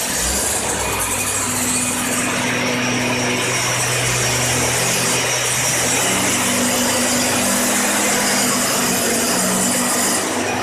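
STIHL backpack mist blower's two-stroke engine running steadily, with the hiss of its air blast as it sprays disinfectant mist. The engine note wavers slightly a few times.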